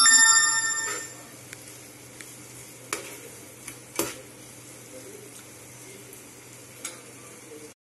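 A steel spoon clinks against the rim of a nonstick pan, ringing out over about a second, then diced carrot and capsicum are stirred in the pan with a faint steady sizzle and a few light clicks of the spoon.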